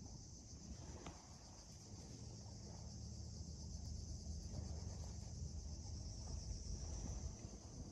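Steady high-pitched insect chorus, over a low rumble.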